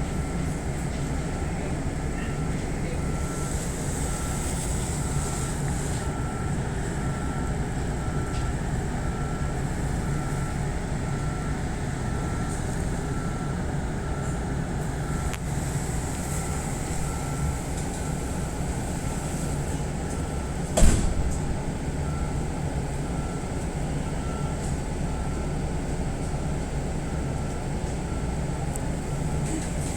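Steady hum of a halted electric commuter train, its onboard equipment running while it waits, with a faint evenly repeating beep throughout. A single sharp knock sounds about 21 seconds in.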